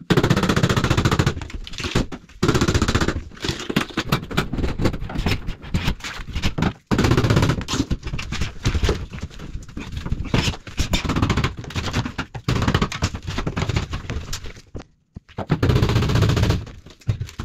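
Claw hammer striking a screwdriver wedged under the metal frame of a shower screen at the shower tray, in fast runs of sharp metal blows with short pauses, knocking the screen's bottom profile loose.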